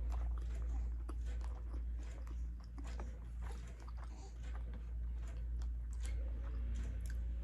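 Close-miked chewing and small wet mouth clicks from a person eating a bite of kielbasa with cheese and pepper jelly, over a steady low hum.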